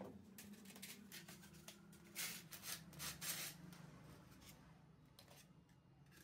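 White polystyrene foam pieces rubbing and scraping as a freshly cut foam section is drawn out of its block and handled. There are several short, dry scrapes in the middle, over a faint steady low hum.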